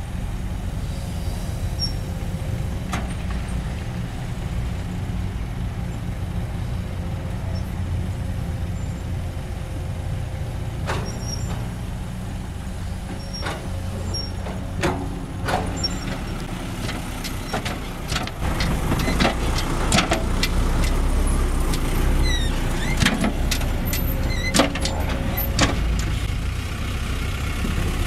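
Kobelco SK200 excavator's diesel engine running steadily while it loads a dump truck, with a faint steady tone above the rumble. Sharp knocks and clanks of dirt and rock dropping into the steel dump bed come now and then, then thicker and louder through the second half.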